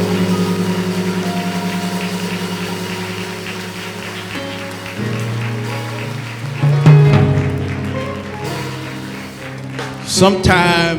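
Organ playing sustained chords with a steady wavering tremolo, changing chords about five and seven seconds in. A short rising pitched swell comes near the end.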